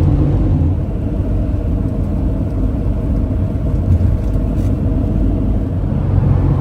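Camper van driving at highway speed, heard from inside the cab: a steady low rumble of engine and tyres with a faint constant hum while it climbs a mountain grade.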